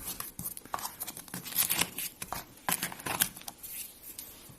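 Packaging for a Zippo lighter being handled and torn open: irregular crinkling, rustling and tearing with sharp crackles, dying away near the end.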